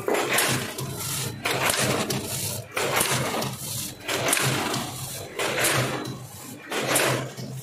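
Vertical form-fill-seal packing machine with a multihead weigher, bagging cheese balls, running in a steady cycle: a sudden noisy burst about every second and a half over a steady low hum.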